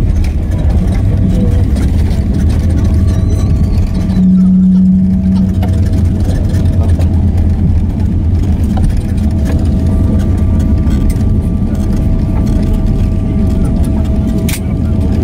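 Inside the cabin of a Boeing 777-300ER during landing: the steady roar of the GE90 engines and rushing air, with a strong low rumble and a steady whine.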